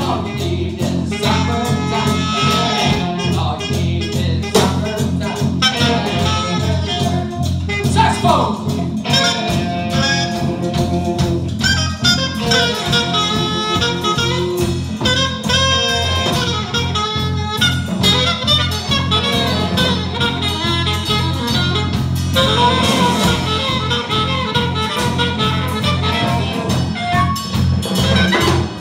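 A small live band playing with a steady beat: drum kit, electric bass, electric guitar and saxophone.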